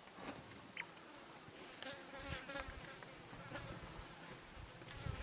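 Insects buzzing faintly, with a few soft clicks and knocks.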